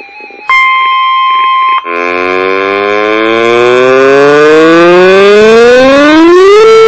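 A steady high beep lasting about a second, then a civil-defense-style warning siren winding up. Its pitch rises steadily for about five seconds and levels off near the end.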